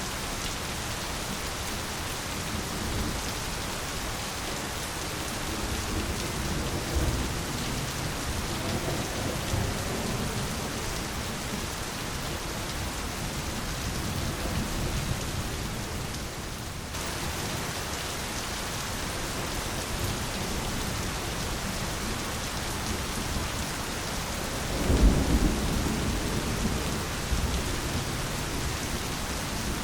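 Steady heavy rain falling, with thunder rumbling low several times; the loudest roll of thunder comes near the end.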